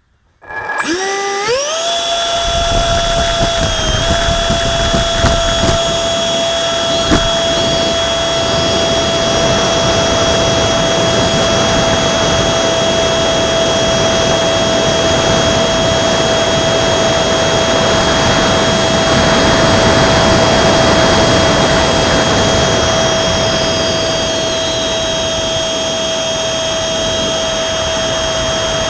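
Electric ducted fan of a ParkZone Habu RC jet spooling up from silence to a steady high whine within about two seconds, then held at a constant pitch over a rushing noise of air.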